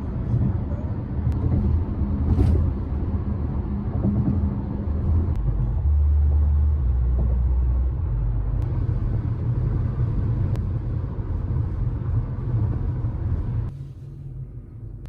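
Steady low rumble of a car driving: road and engine noise. It drops off abruptly near the end.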